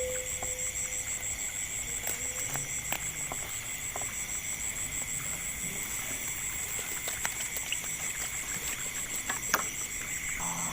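Insects chirping in a steady, high, evenly pulsing drone, with scattered faint clicks over it.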